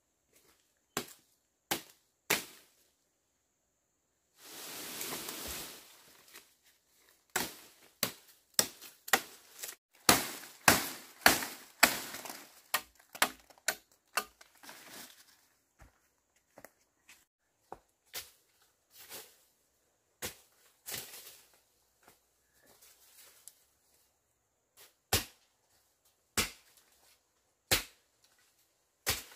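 A machete chopping into plant stems and undergrowth: a string of sharp, irregular knocks, loudest and quickest in the middle. A brief leafy rustle comes about five seconds in.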